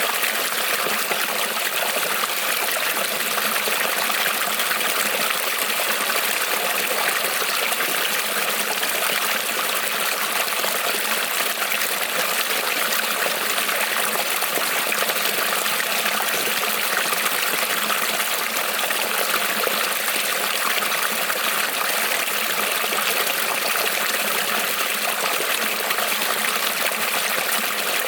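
Small creek rippling and trickling over stones: a steady, even water noise.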